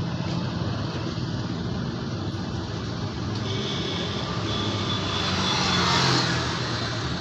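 Road traffic: a steady engine hum, with a vehicle passing close and growing loudest about six seconds in.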